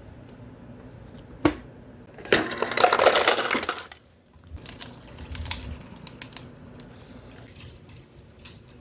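Ice cubes clattering into a container: a single clink, then a dense rattle of ice for about a second and a half, then scattered clinks.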